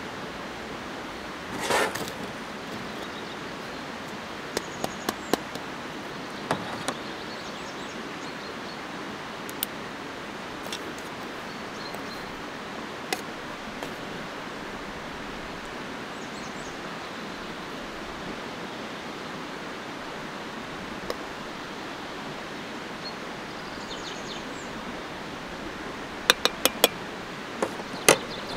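Steady rushing hiss with scattered small clicks and metal clinks from a tin and a steel mug being handled on a metal camp table; a short rustle about two seconds in, and a quick run of sharp clinks near the end as the tin is set down.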